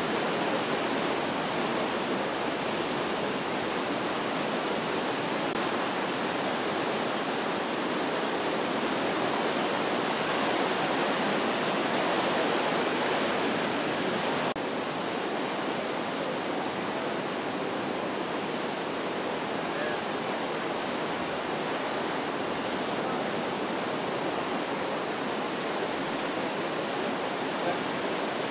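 Steady, loud rush of fast, churning brown floodwater in an overflowing creek, dropping slightly in level about halfway through.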